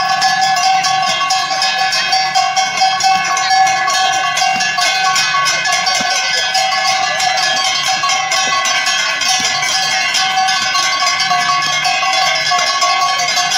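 Metal bells rung rapidly and without a break, a dense clanging over a steady ringing tone.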